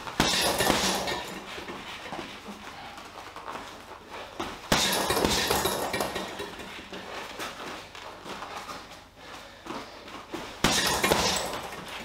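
Boxing gloves hitting a hanging heavy bag in three bursts of punches, about five to six seconds apart. Each burst starts with a sharp hit and tails off over a second or two, with lighter knocks and footwork between.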